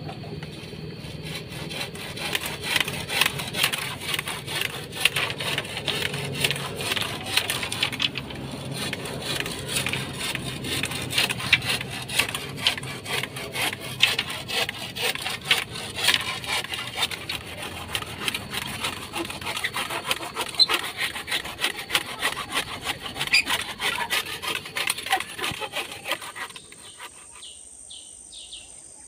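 Wood being sawn by hand: a long run of rapid, uneven rasping strokes that stops about 26 seconds in.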